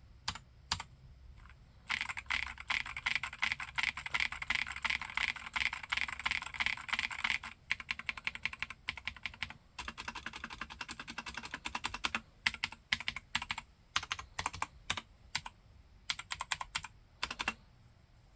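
Typing on a Keychron K4 aluminium mechanical keyboard with spray-lubricated Gateron Blue clicky switches. A few single keystrokes, then about five seconds of fast continuous typing, then slower typing and scattered presses that stop shortly before the end.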